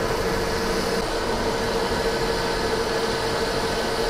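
Metal lathe running steadily while machining a steel shaft, a constant machine whine over a steady hiss.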